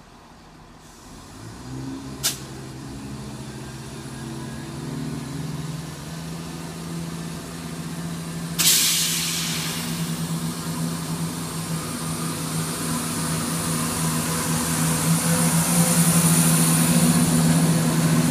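CrossCountry Class 170 Turbostar diesel multiple unit drawing into the platform, the drone of its underfloor diesel engines growing steadily louder as it approaches. There is a sharp click about two seconds in, a sudden burst of air hiss about halfway through, and a thin high squeal near the end.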